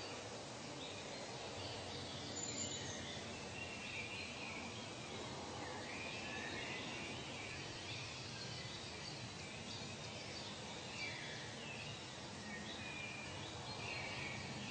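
Outdoor nature ambience: a steady background hiss with many short bird chirps and calls scattered throughout.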